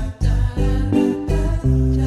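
Background music: a bright, rhythmic tune of short pitched phrases with brief pauses between them.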